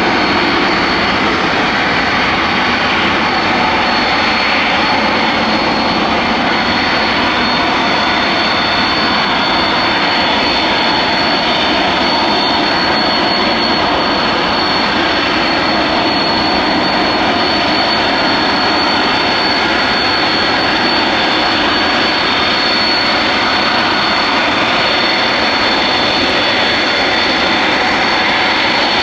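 Boeing 747-400F freighter's four turbofan jet engines running loud and steady, a high steady whine over the rushing roar.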